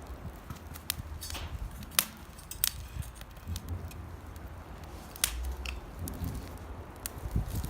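Wood fire of damp firewood crackling, with irregular sharp pops, the loudest about two seconds in, again a moment later and about five seconds in. The moist wood is what makes it pop so much.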